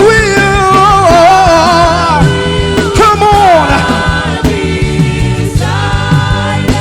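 Live gospel worship music: a lead singer holding long, sliding sung notes over a band with drums and bass.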